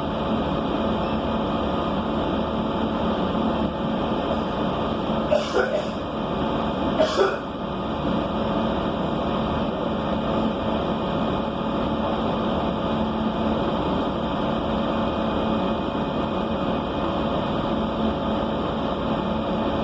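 Steady running hum of a city bus interior, broken by two brief sharp bursts of sound, one about five seconds in and one about seven seconds in.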